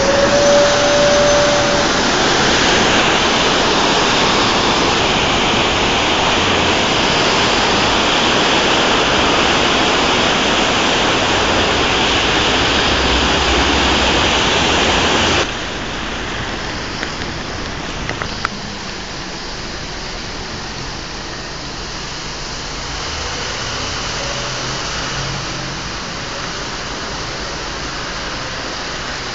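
Floodwater rushing fast through a channel, a loud steady rush of water. About fifteen seconds in it cuts suddenly to a quieter, steady wash of water and rain.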